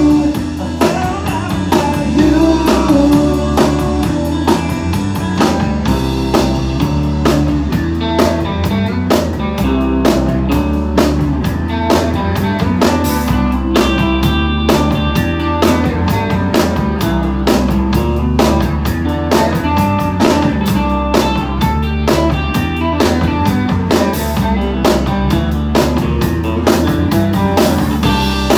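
Live rock band playing loud: a steady drum kit beat under amplified electric guitars.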